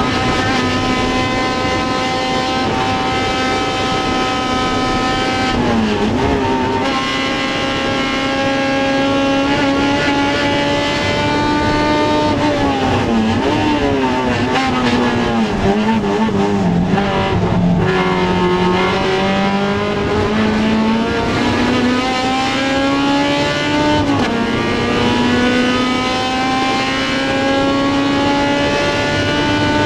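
Honda CRX race car's four-cylinder engine at high revs. It holds steady at first, with a brief drop and recovery about six seconds in. Around the middle it falls in pitch with wavering revs as the car brakes and downshifts, then rises again as it accelerates through the gears, with shifts partway through the climb and at the very end.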